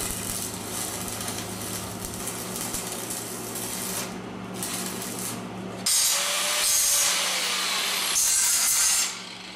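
Electric welding arc on steel conduit pipe, crackling steadily over a low electrical hum. About six seconds in the hum drops out and a louder, brighter hiss starts, then cuts off abruptly near the end.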